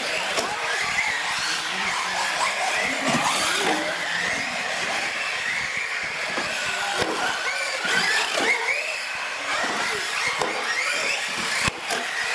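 Several radio-controlled UTV models racing on a concrete floor: their motors whine, the pitch gliding up and down with the throttle, with tires squealing and a few sharp knocks.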